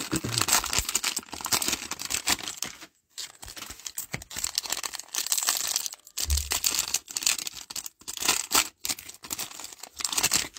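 Plastic cellophane wrapper of a Panini Prizm cello pack of trading cards crinkling and tearing as it is ripped open by hand, in crackly bursts with brief pauses.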